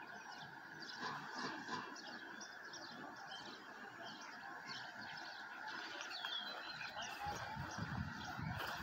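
Several small birds chirping and singing in short, varied calls over a steady hiss, with a few low thuds near the end.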